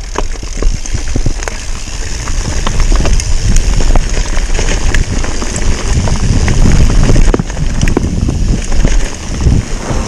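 Mountain bike riding fast over a rough, stony trail: tyres crunching on gravel and rocks while the chain and frame rattle with frequent sharp knocks. Wind buffets the camera's microphone with a steady low rumble.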